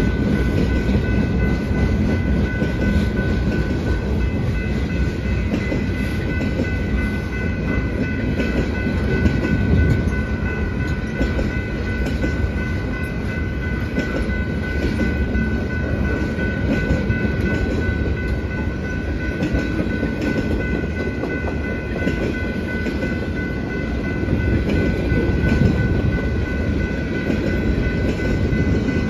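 Loaded flatcars of a long freight train rolling past: a steady low rumble of steel wheels on rail with clickety-clack over the joints. A steady high-pitched tone sits above it.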